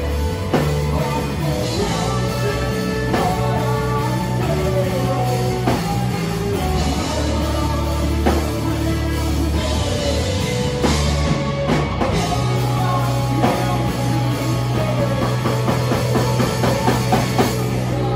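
Live rock band playing loudly in a small room: electric guitars, bass guitar and drum kit, with a run of rapid drum hits near the end.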